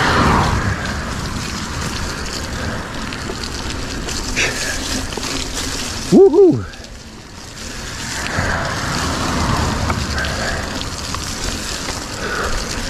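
Mountain bike riding along a dirt trail: a steady rush of tyre and wind noise, with a rider's shout of "woohoo" about six seconds in. Right after the shout the noise drops for about a second, then picks up again.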